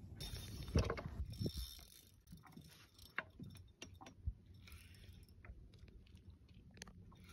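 Fishing reel being cranked with a hooked fish on the line, its gears giving irregular mechanical clicks and ratcheting, busiest in the first second or two.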